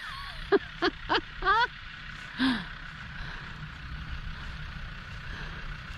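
A person's short excited exclamations in the first couple of seconds, then a single falling "ohh", followed by a steady low outdoor rumble and hiss.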